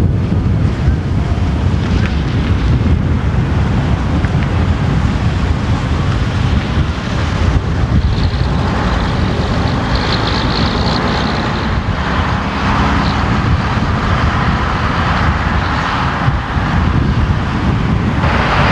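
A road vehicle running, with a steady rumble and wind buffeting the microphone.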